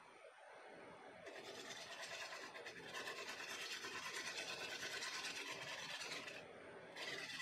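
Bowl gouge cutting the outside of a wooden bowl spinning on a wood lathe, a steady scraping hiss of shavings coming off. The cut is lighter at the start, fuller from about three seconds in, and eases off briefly near the end.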